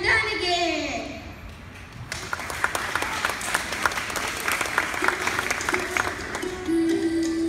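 An audience clapping for a few seconds after a child's spoken introduction over the microphone; near the end, music starts.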